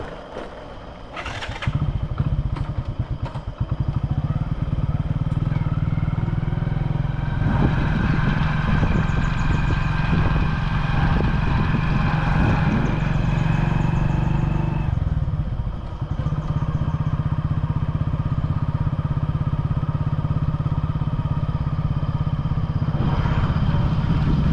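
Vehicle engine running: after a short click, it picks up about two seconds in and then runs steadily, with a brief dip near sixteen seconds.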